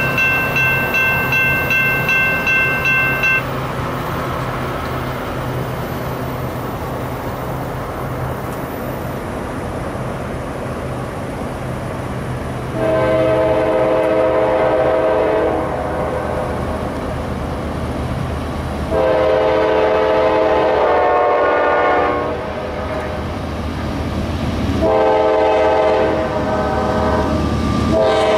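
Diesel freight locomotive's multi-chime air horn sounding the grade-crossing signal: two long blasts, a short one and a long one. Under it runs the steady rumble of the locomotive and train, and a quickly repeated ringing stops a few seconds in.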